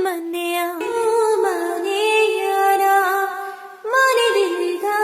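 A woman singing a slow melody without words, holding long notes with small slides between them. She pauses briefly about three and a half seconds in.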